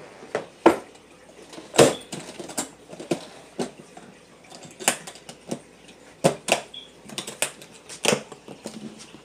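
Aluminium makeup train case being shut and latched: a string of irregular sharp metallic clicks and clacks as the trays fold in, the lid closes and the latches are worked, the loudest clack about two seconds in.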